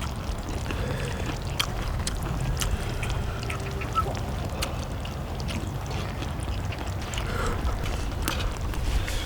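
Eating at a shared griddle: scattered light clicks and taps of utensils and chewing over a steady low rumble.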